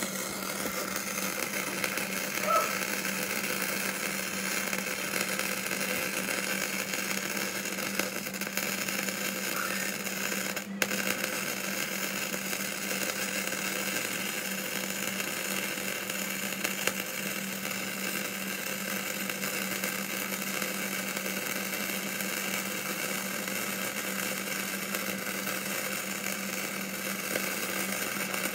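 Flux-core MIG welding arc crackling steadily as a Hobart Handler 140 runs Harbor Freight Vulcan 0.035 flux-core wire, with a steady hum under it. The arc briefly cuts out about eleven seconds in.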